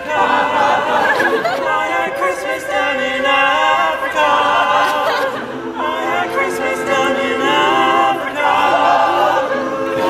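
All-male a cappella group singing in multi-part harmony, holding chords that change every second or two.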